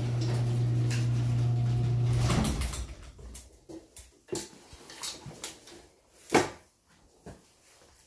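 LiftMaster 8165W belt-drive garage door opener's 1/2 hp AC motor running with a steady hum, then shutting off about two and a half seconds in, its pitch sagging as it stops. Scattered clicks and knocks follow, the sharpest about six seconds in.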